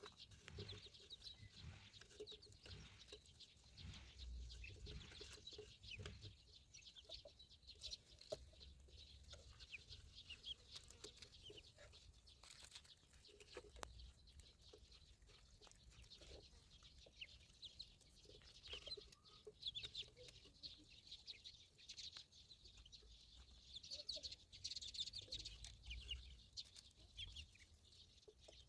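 Ducklings peeping faintly: many short, high-pitched peeps scattered throughout.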